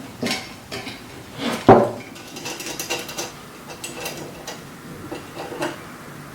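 Zinc conduit connector and lock nut clinking and knocking against a junction box as they are fitted and tightened by hand. There is one loud knock about two seconds in, followed by scattered light metallic taps.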